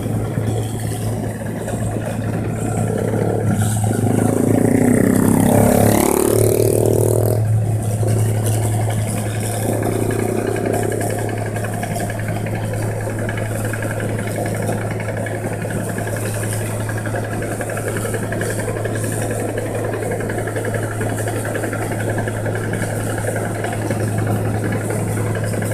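New Holland 1545 combine harvester's diesel engine running steadily on the road, with a constant low hum; around four to seven seconds in it grows louder and its pitch swings down and back up.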